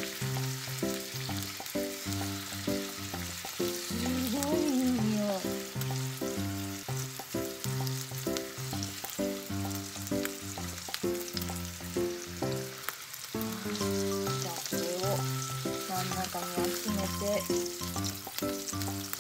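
Thin slices of sukiyaki beef sizzling in a hot cast-iron skillet, a steady frying hiss. A melodic background tune with a bass line plays along throughout.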